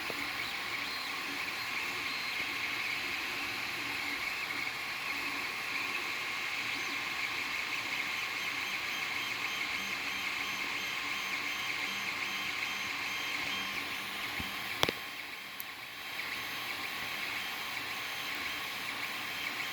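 Creality Ender-3 3D printer running a print: a steady fan hum with the stepper motors whirring and whining as the print head moves. A single sharp click comes about 15 seconds in.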